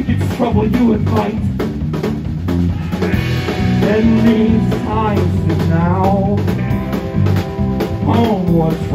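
Live rock band playing: drum kit, electric guitar and bass under a wavering lead vocal line.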